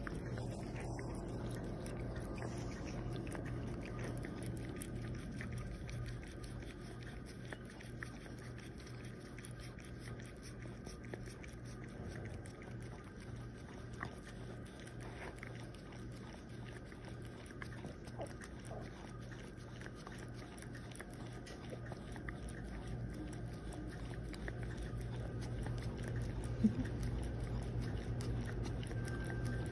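Small dog licking and lapping ice cream out of a small cup, a continuous run of soft wet licking clicks and smacks, over a steady low hum.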